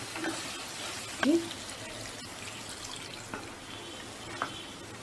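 Water poured into a hot pan of sausages in mustard sauce, the sauce sizzling as it takes the water. A short loud knock with a rising squeak comes about a second in, and lighter ticks follow later.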